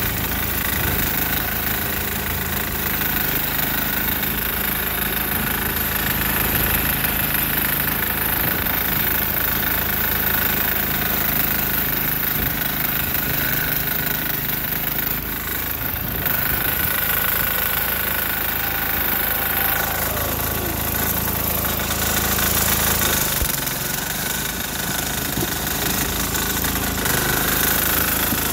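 Single-cylinder diesel engine of a repowered Sears Suburban garden tractor running steadily under load, pushing the tractor through deep, drifted snow.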